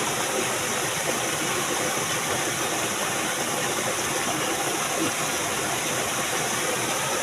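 Steady rushing of flowing water, like a stream or small weir, as an even hiss that stays level throughout.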